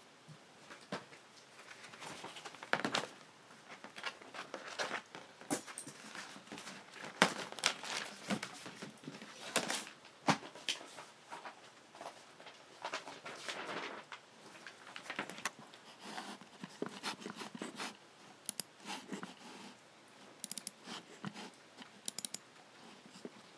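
Logitech G7 computer mouse buttons clicking at an uneven pace, mostly single clicks, with quick runs of several clicks near the end.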